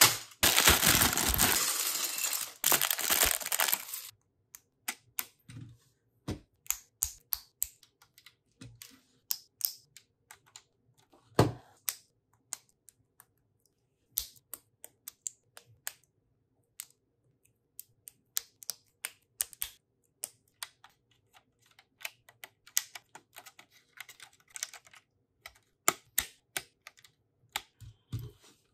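Plastic bag of Lego pieces crinkling and being torn open for about the first four seconds, then scattered sharp clicks of Lego bricks being snapped together and set down on the desk.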